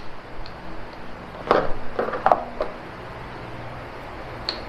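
A few short clicks and knocks from handling a cordless impact wrench and its parts, bunched between about one and a half and three seconds in, with one faint tick near the end.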